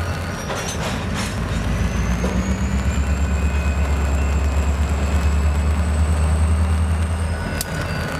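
EMD diesel locomotives working under power, a heavy pulsing engine rumble that swells over several seconds, with a thin high whine slowly rising in pitch above it. The sound changes abruptly near the end.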